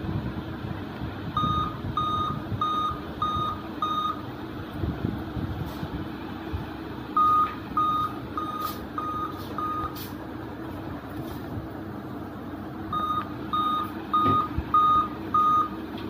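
Dell Inspiron 3520 laptop beeping at startup in repeated sets of five short, high beeps, a few seconds between sets: the continuous-beep fault. A steady low hum runs underneath, with a few sharp clicks in the middle.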